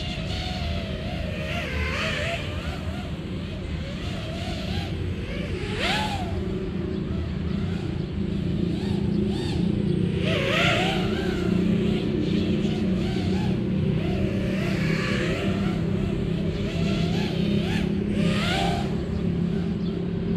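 FPV racing quadcopter's T-Motor Pacer 2207 1950KV motors and 5043 propellers whining, the pitch wavering up and down with the throttle over a steady lower hum. The pitch sweeps up in louder surges about 6, 10, 15 and 18 seconds in.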